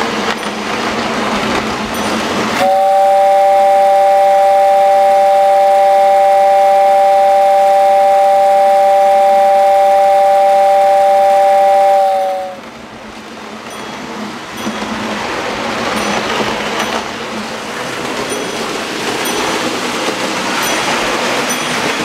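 Lionel toy train's electric whistle, a small motor-driven fan blowing through a whistle chamber, sounding one steady chord of a few notes for about ten seconds, then sagging in pitch as it cuts off. Rushing, rattling toy-train running noise before and after it.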